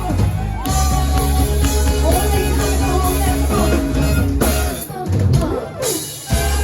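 Rock song with drums, bass, guitar and a singing voice; the music thins out briefly about a second before the end.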